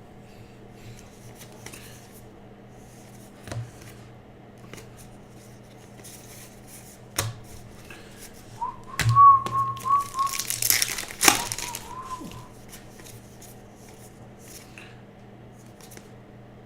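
Foil card-pack wrapper crinkling and tearing open, loudest in the middle stretch. Over it, someone whistles two short held notes.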